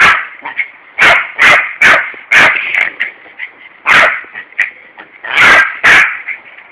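Yorkshire terrier barking at a garden hosepipe, about eight loud, sharp barks in irregular bursts, two of them close together near the end.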